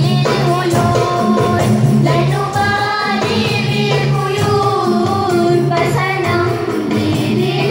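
A group of young girls singing an Islamic song (nasyid) in unison through microphones and a PA, with hand drums keeping the beat.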